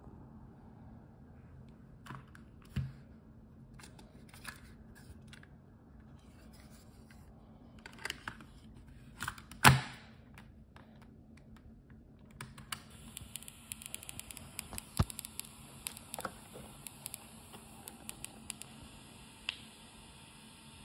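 Clicks and clacks of a plastic cassette tape and its case being handled and loaded into a portable cassette player, with one sharp clack about ten seconds in and a run of small clicks in the second half. A steady hiss sets in about halfway.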